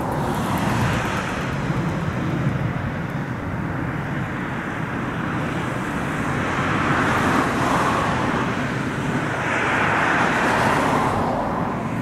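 Steady outdoor background noise: a low rumble under a broad hiss that swells twice, about halfway through and again near the end.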